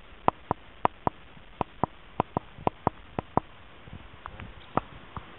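A series of sharp, separate clicks, about three a second and often in pairs, pausing briefly before a few more near the end.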